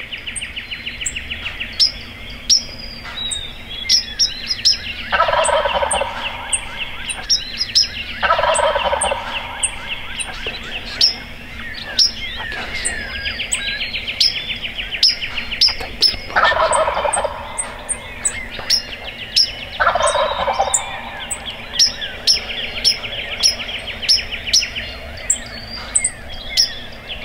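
Wild turkey gobbler gobbling four times, each a rattling call of about a second, over a dawn chorus of songbirds: a fast continuous trill and sharp high chirps repeating about twice a second.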